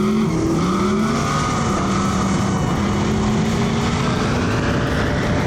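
A high-powered V8 race car running hard under power, its engine note climbing and dipping and then holding steady.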